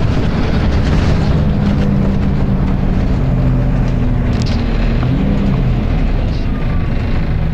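Volvo B10BLE bus's diesel engine and loud radiator cooling fan running as a continuous low drone. Its pitch shifts, dipping and rising again about five seconds in.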